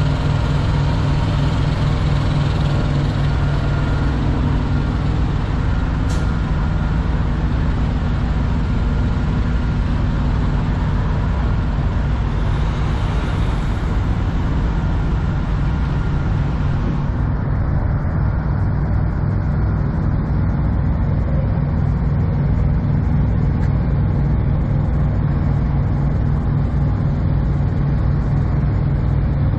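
Heavy diesel engine of a semi truck idling steadily, with a low, even pulsing drone. There is a single sharp click about six seconds in.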